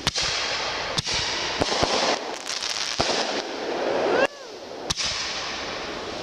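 Consumer fireworks going off: a string of sharp bangs about a second apart, with crackling between them and a brief whistle a little past the middle.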